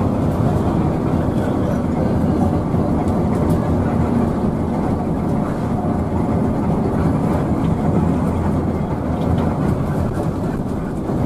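Steady engine and road drone inside a bus cabin while cruising on a highway.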